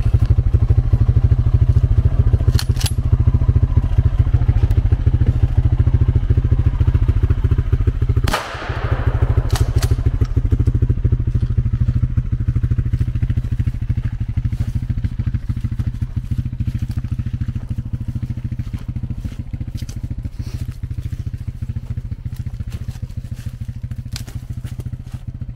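Vehicle engine running while driving on a rough back road, a steady low rumble. A sharp knock about eight seconds in, after which the engine gradually gets quieter as the vehicle slows.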